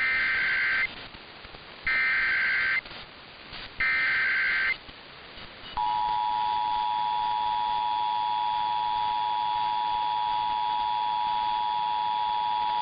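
Emergency Alert System SAME header: three bursts of screechy digital data tone, each about a second long and spaced about two seconds apart. About six seconds in, the steady two-tone EAS attention signal starts and holds, announcing the alert message that follows.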